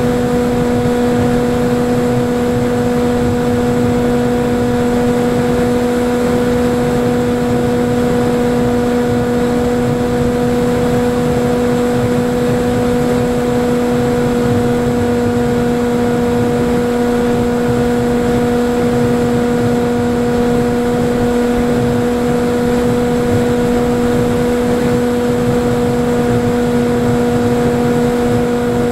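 Electric motor and propeller of a Falcon Evo FPV flying wing running at a steady pitch, heard through the onboard camera's microphone over a constant rush of wind.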